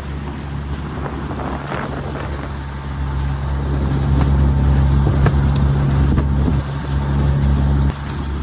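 Small motorboat's engine running steadily underway through choppy water, with wind noise and splashing; it grows louder for a few seconds in the middle.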